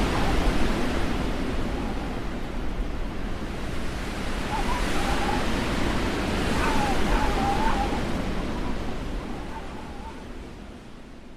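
Blizzard wind blowing hard with a deep rumble. Faint wavering whistles rise and fall about halfway through. The wind dies down over the last few seconds.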